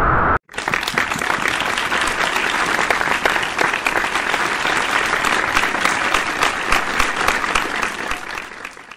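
Applause, many hands clapping in a dense patter. It starts abruptly about half a second in and fades out near the end.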